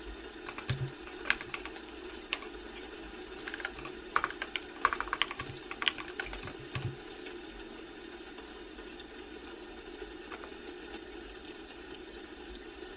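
Typing on a computer keyboard: irregular runs of key clicks for the first seven seconds or so, then only an occasional keystroke. A steady hum runs underneath.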